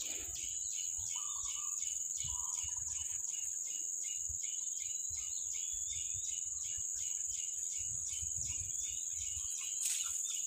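Insects droning in a steady high-pitched chorus, with an even, fast pulsing of about four beats a second over it. Irregular low rumbling runs underneath.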